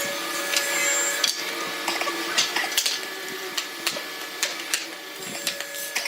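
A small machine running steadily with a constant hum, with irregular sharp clicks and knocks over it.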